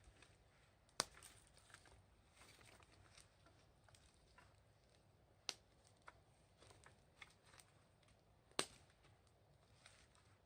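Wood fire crackling quietly, with scattered faint crackles and three sharper pops spread through.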